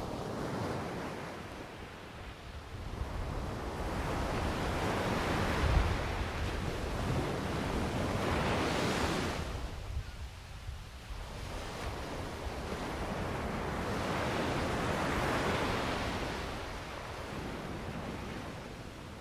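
Ocean waves breaking and washing ashore, the surf swelling and fading in two long surges, with wind rumbling on the microphone.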